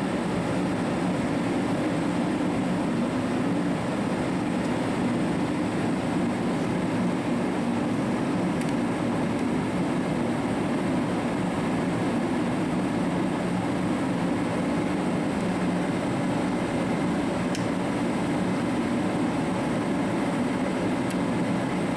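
Shop heater running with a steady hum and rush of air, with a faint tick or two.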